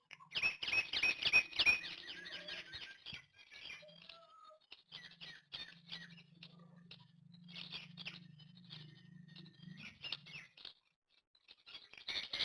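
A bird of prey calling in a rapid series of shrill notes, about five a second, for the first two seconds, with more calls near the end. In between come scattered clicks and a low steady hum.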